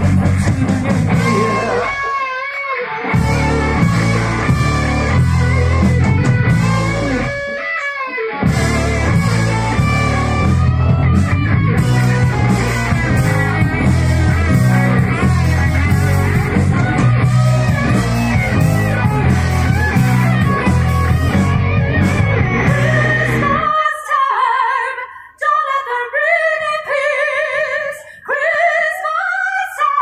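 Live rock band playing, a woman singing over electric guitars, bass guitar and drums. Twice in the first ten seconds the bass and drums cut out for a moment, and about six seconds before the end they stop, leaving the singing almost alone.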